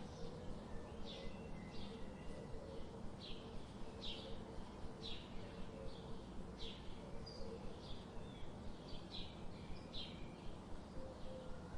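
Small birds chirping, short high chirps coming about once a second, over a steady background hiss.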